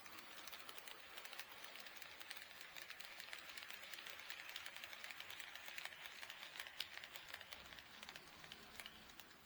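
HO-scale model train running past on sectional track: a faint rolling hiss dotted with rapid little clicks, swelling and then fading near the end.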